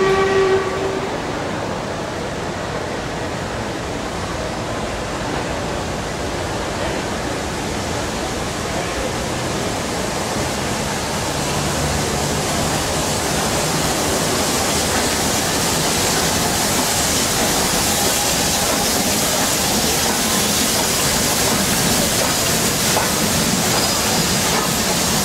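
Ex-LMS Class 8F 2-8-0 steam locomotive running slowly into a station with its train: the tail of its whistle at the very start, then a steady hiss and rumble that grows a little louder as the engine and coaches come in and pass.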